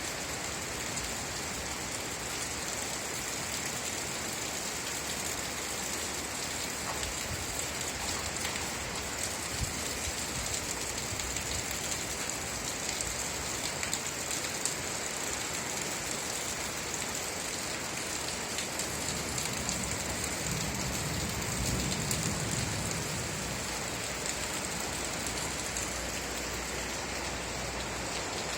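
Steady rain falling on surfaces, an even hiss with scattered individual drop ticks. A low rumble swells briefly about two-thirds of the way through.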